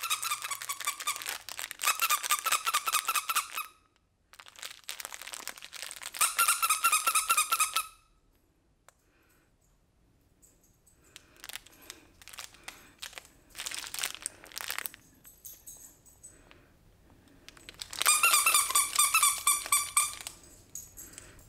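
Plush monkey dog toy with a squeaker, squeezed in four bursts of rapid squeaks. Fainter crinkling from the toy comes in between the bursts.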